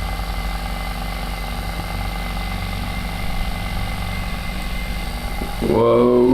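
Handheld electric massager buzzing steadily against the neck; it makes a low, even motor hum. Near the end a voice cuts in over it.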